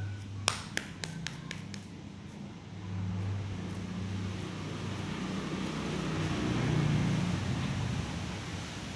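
A motor vehicle's engine running low and steady, growing louder to a peak about seven seconds in and then easing off, as if passing by. A few sharp clicks come in the first second or so.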